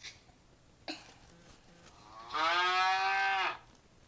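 A cow mooing once, a single steady moo of about a second and a half. A faint click comes a second before it.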